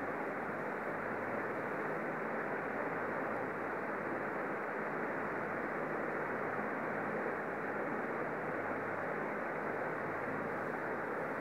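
A steady, even hiss of background noise that does not change, with no other sound in it.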